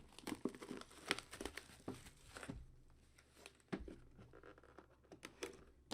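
Faint crinkling and rustling of packaging, with short clicks, as a trading-card box is opened; busiest in the first couple of seconds, then a few scattered clicks.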